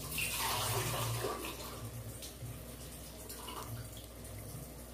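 A brief rush of running or poured water that starts suddenly and fades over about a second and a half, followed by a few faint clicks.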